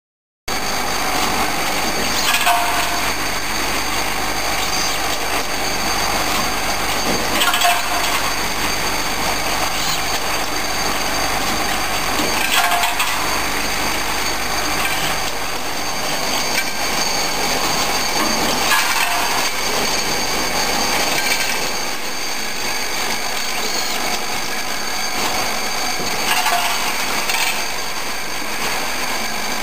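Six-station CNC transfer machine running through its machining cycle: steady cutting and spindle noise with several high tones held throughout, and a louder accent every five to eight seconds.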